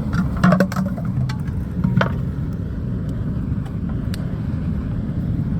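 Steady low roar of a homemade forced-air coal furnace, its ventilator blowing air into the fire, with a few sharp crackles and pops from the burning coal and plastic.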